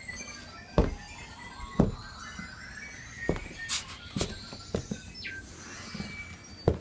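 A toddler's oversized rubber rain boots clomping on a hardwood floor: about six heavy, uneven steps, roughly one a second.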